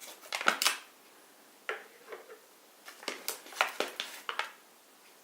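Kitchen utensils and containers being handled while flour is fetched: quick clicks, knocks and brief rustles. They come in a short cluster about half a second in and a longer run from about three to four and a half seconds.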